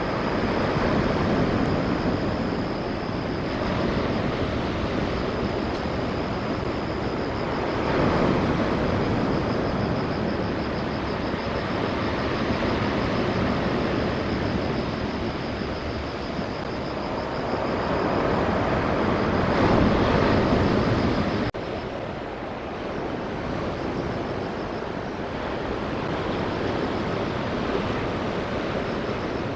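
Ocean surf on a pebble shore with wind on an outdoor camera's microphone: a continuous rushing that swells every several seconds, dropping abruptly to a quieter rush about 21 seconds in.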